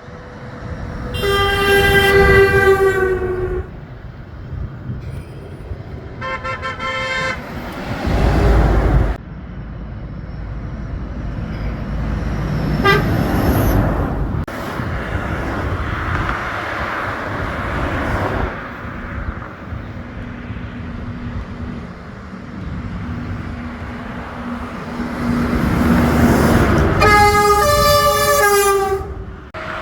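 Passing trucks sounding air horns: three long horn blasts of a couple of seconds each, one near the start, one about six seconds in and one near the end. Truck engine and tyre noise runs between them, with a loud low rumble of a truck going by after the second blast.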